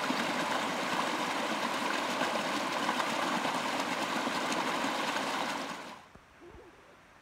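A small mountain stream running over bare rock close to the microphone, a steady rushing that fades away quickly about six seconds in.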